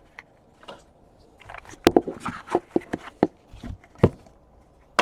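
Trading-card packaging and cards being handled at close range: irregular crinkling and rustling with sharp plastic-like clicks, the loudest about two seconds in and again about four seconds in.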